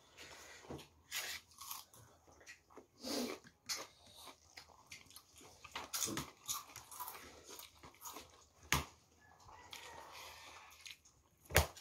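Close-up eating sounds of rice and meat curry eaten by hand: chewing and lip smacking, with many short, irregular wet clicks and a few crunches.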